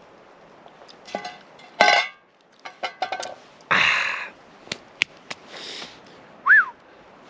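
Metal cookware clinking and scraping while eating from the pot: several sharp, ringing clinks and a longer scrape in the middle, then a short, high squeak near the end.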